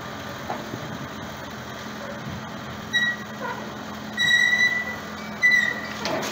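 A telehandler's diesel engine runs steadily as it tows a loaded steel boat cradle on small wheels across concrete. The cradle squeals high-pitched a few times: a short squeal about 3 s in, a longer one of most of a second around 4 s, and another just after 5 s.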